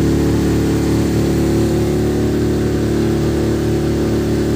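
Boat engine running steadily at constant speed, a low, even hum.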